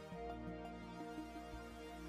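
Quiet background music with held notes.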